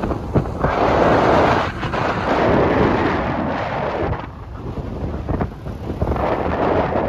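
Wind buffeting the microphone of a moving car in loud gusts, over a steady low rumble of road and engine noise.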